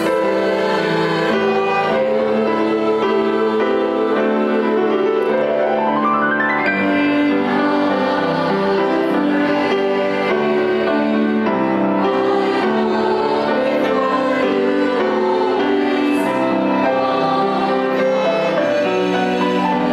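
Violin playing a slow hymn melody over piano accompaniment, with a quick rising run about six seconds in.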